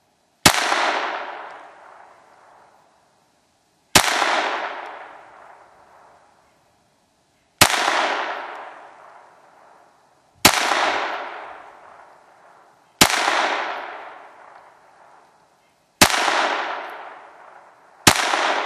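Seven slow, deliberate shots from a Ruger 22/45 Mark III .22 LR pistol with a 4-inch barrel, a few seconds apart. Each sharp crack is followed by an echo that dies away over about two seconds.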